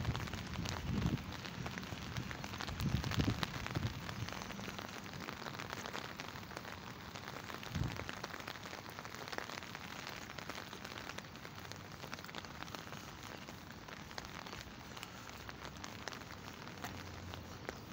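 Steady light rain pattering, a haze of many fine drop ticks. A few low rumbles break in about one, three and eight seconds in.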